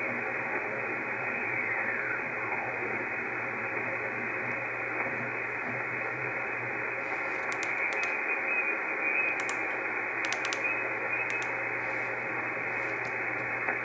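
Reuter RDR54 digital receiver playing narrow-filtered band noise, a steady hiss, as it is tuned up through the 20-metre amateur band in upper sideband, with a faint falling whistle about two seconds in as it passes a signal. A few faint clicks come in the second half.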